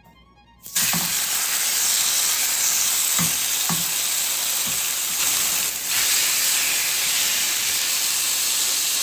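Thin beef steaks frying in hot oil in a pan. A loud sizzle starts suddenly under a second in as the meat goes into the pan and stays steady, with a few soft knocks as the meat is placed and moved.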